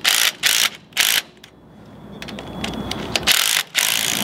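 Cordless impact driver hammering a set bolt into a roll-up motor's shaft coupler, in short bursts of rattling impacts: three quick ones, a pause, then two more near the end.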